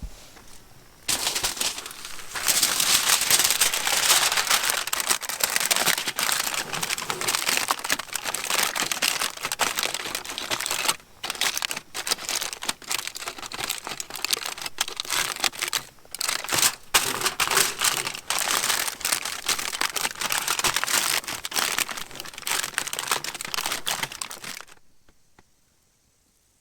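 Loud, continuous crinkling and crumpling, as of a bag or wrapping being handled. It starts about a second in, pauses briefly twice, and stops near the end.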